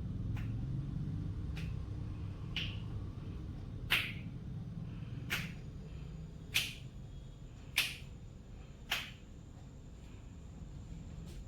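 Finger knuckles cracking one after another: about eight sharp pops, a little over a second apart, the fainter ones at the start and the loudest in the middle.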